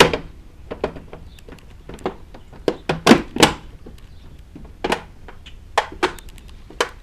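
Plastic front spoiler being pressed and snapped onto the car's front fascia tabs: about a dozen sharp, irregular clicks and knocks, the loudest cluster about three seconds in.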